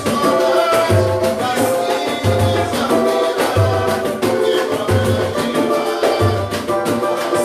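Samba group playing live: shakers and other percussion over sustained chords, with a deep bass note landing about every 1.3 seconds.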